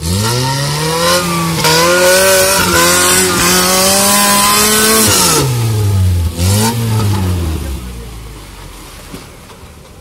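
Off-road Maruti Gypsy 4x4's engine revving hard as it climbs a muddy slope, held high for about five seconds with a loud hiss of noise over it. It then drops off, gives one more short blip about six and a half seconds in, and dies away toward idle.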